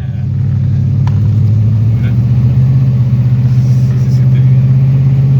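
1975 AMC Matador station wagon's engine pulling on the road, a deep steady drone that grows louder over the first couple of seconds and then holds. It is running strong on its freshly rebuilt carburetor.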